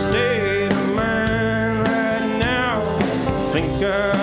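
Live country-rock band playing an instrumental passage: a lead guitar bends notes over steady rhythm guitar, bass and drums.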